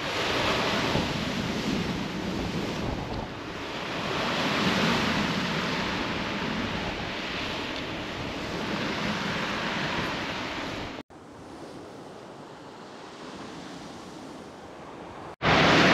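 Waves breaking on a shingle beach with wind buffeting the microphone, the surf surging and easing. About eleven seconds in it drops suddenly to a quieter wash of surf.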